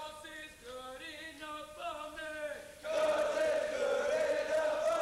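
A group of men's voices chanting or singing in unison: a run of short, stepped notes, then a loud, long held cry starting about three seconds in.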